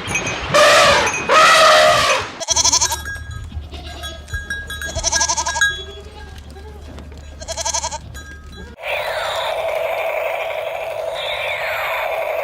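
Farm animal calls: two drawn-out pitched cries, then three short calls about two and a half seconds apart over a low hum. About nine seconds in, these give way to a different steady sound with falling whistling sweeps.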